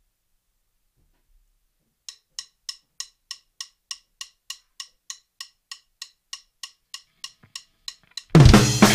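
A metronome click track ticking evenly, about three clicks a second, for about six seconds, then electric guitar and drums come in loudly together near the end on a rock scratch track.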